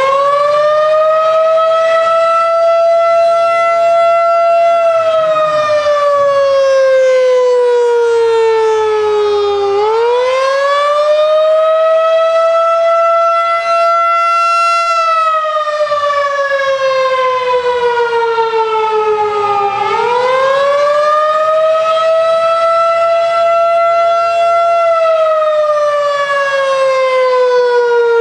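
Federal Signal 2001-DC outdoor warning siren sounding the wailing attack signal. Its tone climbs quickly, holds for about four seconds, then slides slowly down over about five seconds, and the cycle repeats about every ten seconds.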